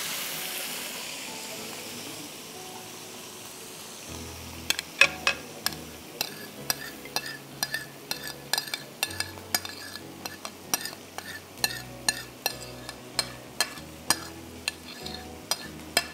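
Beef undercut sizzling as it goes into hot oil in a wok, the sizzle fading over the first couple of seconds. Then, from about four seconds in, a spoon clinks irregularly against a ceramic bowl, two or three clinks a second, as cubed vegetables are tossed in their marinade.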